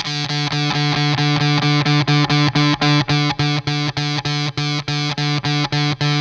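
Overdriven electric guitar playing fast, evenly picked notes, about five a second, over a steady low note that keeps sounding underneath.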